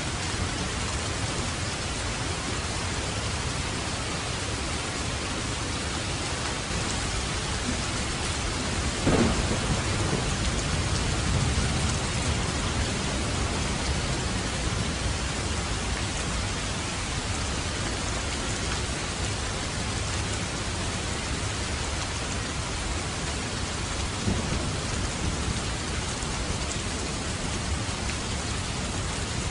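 Steady heavy rain falling, with a sharp thunderclap about nine seconds in that rumbles on for a few seconds, and a smaller crack near the end.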